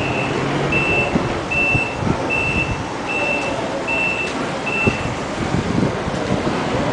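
Forklift reversing alarm: a steady high beep repeating about once every 0.8 seconds, stopping about five seconds in, over the forklift's engine running.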